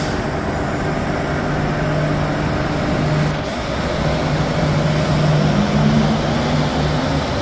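Bombardier Innovia APM 100 light-rail train running on rubber tyres along its concrete guideway and pulling away: a steady rolling noise with a low motor hum that rises slightly in pitch and grows louder about five to six seconds in.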